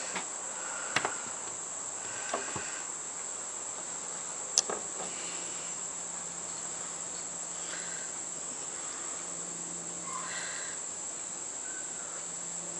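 Steady high-pitched chirring of insects in the background, with a few small clicks and knocks; the sharpest click comes about four and a half seconds in.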